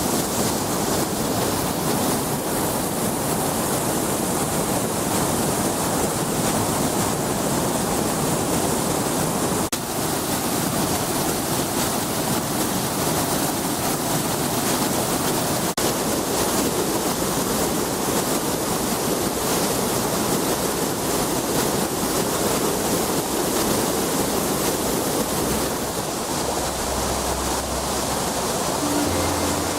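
Waterfall pouring into a lake: a loud, steady rush of falling water.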